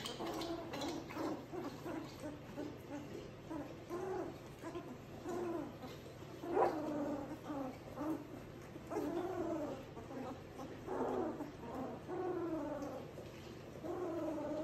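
A litter of three-week-old Labrador Retriever puppies whimpering: short, high cries that rise and fall in pitch, about one a second, with one louder cry about six and a half seconds in.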